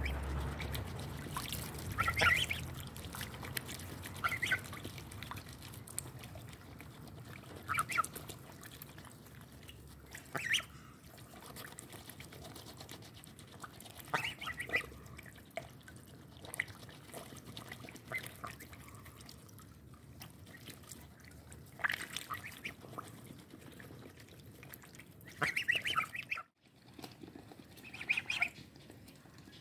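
Domestic geese feeding at a halved watermelon, their bills clicking and dabbling in the wet flesh and juice. Short calls come from the flock every few seconds.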